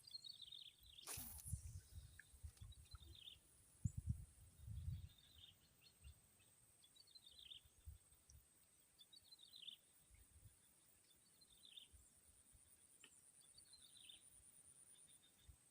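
Faint outdoor sound with a bird's short descending chirp repeated every second or two over a steady, thin high tone. A few low thumps and one sharp click come in the first five seconds.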